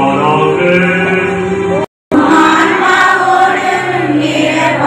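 A group of voices chanting together in held notes. The sound cuts out completely for a moment about two seconds in.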